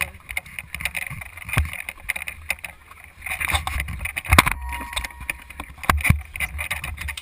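Handling noise on a rifle-mounted GoPro as the player moves: irregular knocks, rattles and low rumbling from the gun and gear, with a few sharper knocks about four and six seconds in.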